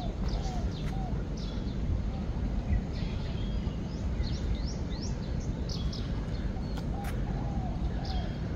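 Birds calling: short, high, upward-sweeping chirps that come in bunches, mixed with soft lower notes, over a steady low background rumble.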